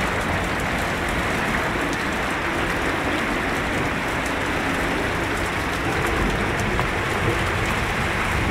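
Heavy downpour: a steady rush of rain, with scattered sharp drop ticks on a nearby surface.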